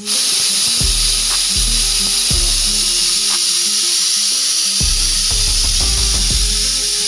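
Pressure cooker whistle blowing: a loud, steady hiss of escaping steam as the vent weight lifts at full pressure. It lasts about seven seconds and cuts off suddenly, over background music with a bass line and a beat.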